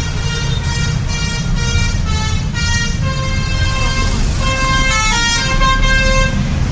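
Bus's multi-tone telolet (basuri) horn playing a quick tune, its notes stepping up and down, over low engine and traffic rumble.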